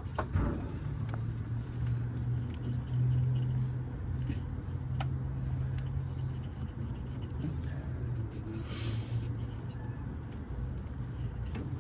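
A steady low engine hum of a running vehicle, a little louder about three seconds in, with a few faint clicks.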